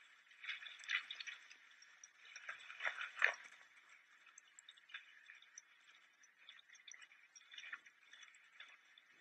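Faint scattered clicks and scuffs of horses and people moving over dry ground, busiest in the first three and a half seconds and sparse after.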